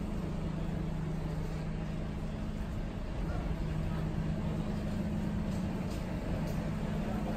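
Transfer coach driving, heard from inside the cabin: a steady low engine hum with road noise.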